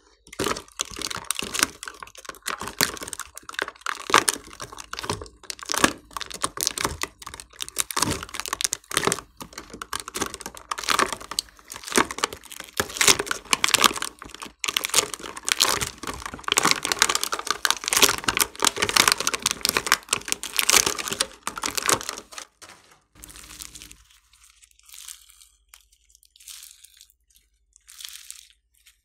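Slime being squished and mixed by hand, giving a dense run of wet crackling and popping clicks that thins out to a few scattered pops about 23 seconds in.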